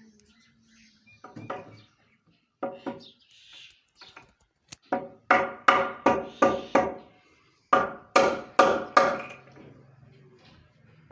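Two quick runs of sharp knocks on wood, about five or six strokes each at roughly four a second, each stroke with a brief pitched ring.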